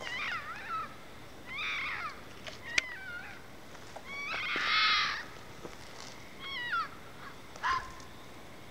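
Red fox calling: about five short bouts of high, wavering screeching calls, the longest and loudest about halfway through. The uploader takes it for mating calls.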